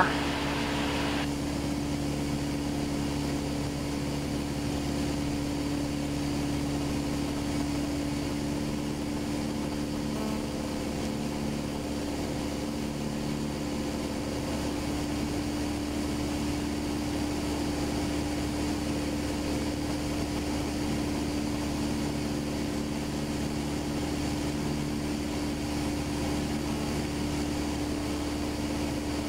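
Single-engine Cessna's piston engine and propeller droning steadily in level cruise, heard from inside the cockpit.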